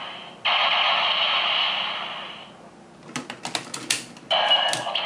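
An electronic toy's small, tinny speaker plays a sound effect that fades out after about two seconds. A quick run of plastic clicks follows, and a second sound effect starts near the end.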